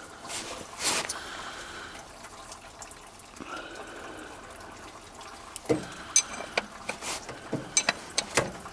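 Old engine oil pouring in a steady trickle from the drain of a 1972 AM General M35A2 truck's engine into a catch container. A run of sharp clicks and knocks comes in the second half.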